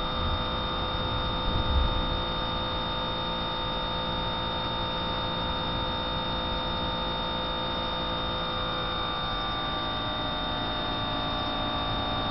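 Electric fuel pump of a Renault 5 GT Turbo running with the engine off: a steady, even hum and whine. It is feeding the fuel pressure regulator while the regulator is held at about 20 psi of simulated boost. A soft low thump comes about two seconds in.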